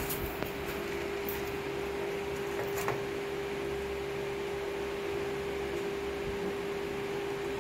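Steady hum with one constant tone, with a few faint light ticks, once near the start and once about three seconds in.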